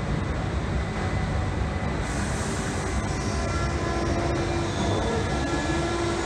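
London Underground Central line 1992 Stock train pulling away from the platform. A steady low rumble, joined about halfway by a motor whine that starts to rise in pitch near the end as the train gathers speed.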